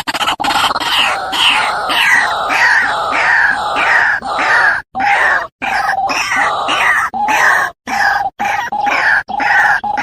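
White-breasted waterhen calling: a loud, rapid series of harsh repeated notes. In the first half the notes fall in pitch at about two a second; later they hold a steadier, lower pitch.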